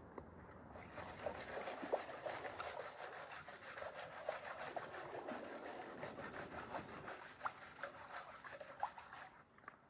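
River gravel being worked through a gold-panning classifier screen: a steady gritty scraping with small clicks of stones. It starts about a second in and stops near the end.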